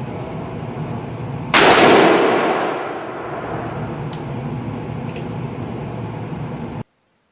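A single rifle shot from a Smith & Wesson M&P15 Sport II AR-15 in 5.56/.223, its report ringing on for about a second and a half over steady background noise. Two faint sharp ticks follow, and the sound cuts off abruptly near the end.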